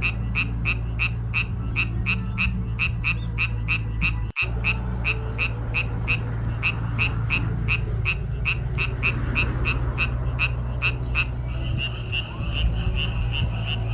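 Frogs calling in a steady rhythm of about four croaks a second over a low steady rumble. The sound drops out briefly about four seconds in, and near the end the calls run together into one continuous note.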